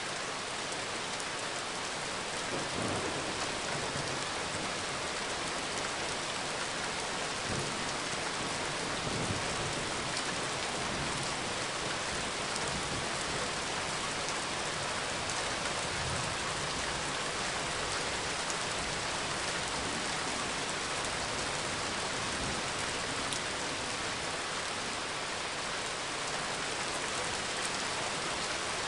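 Steady rain falling in a dense, even hiss, with a few low rumbles underneath.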